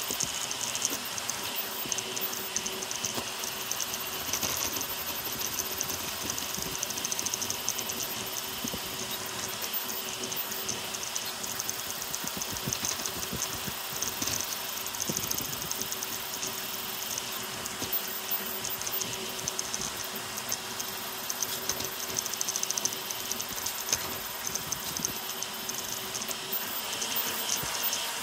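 ZeroG Mercury 1.1 CoreXY 3D printer printing a Benchy at high speed (400 mm/s, 40k acceleration): the stepper motors buzz and chatter through rapid back-and-forth moves over a steady cooling-fan hiss. A steady hum runs underneath and steps up in pitch near the end.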